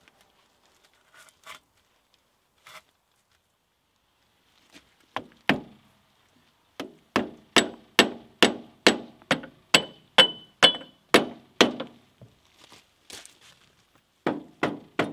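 Hammer blows on the steel front end of a Volvo BM 430T tractor: a couple of strikes, then a steady run of about a dozen at just over two a second with a short metallic ring to each, and a few more near the end.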